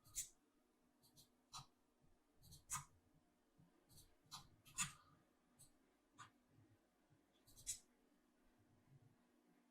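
Faint computer mouse clicks, about ten sharp single clicks at irregular intervals, over a low steady hum.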